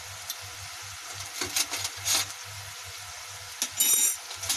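Wooden spatula scraping and moving cooked rice in a non-stick kadai, a few short scrapes, with a short high clink at about four seconds; a low steady hum underneath.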